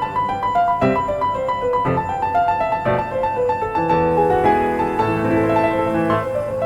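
Background piano music: a gentle melody of single notes about once a second over sustained chords.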